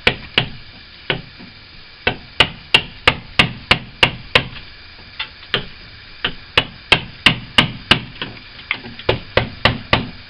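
Hammer tapping a blade to chip very hard old putty out of a wooden window frame: runs of quick, sharp taps, about three a second, with brief pauses between runs.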